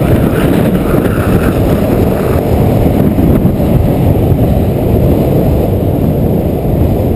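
Steady, loud rush of wind buffeting the microphone, mixed with the rolling noise of skateboard wheels on asphalt during a fast downhill longboard run.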